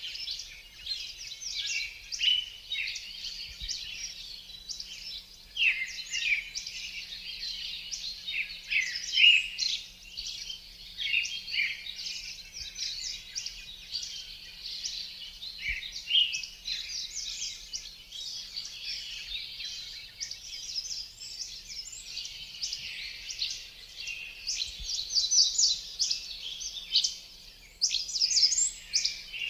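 Many songbirds chirping and singing together in a dense chorus of quick, high chirps and short whistled glides.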